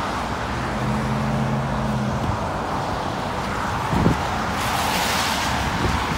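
Road traffic at an intersection: a steady low engine hum from vehicles, then a car passing with tyre noise swelling from about two-thirds of the way in. A brief thump comes about four seconds in.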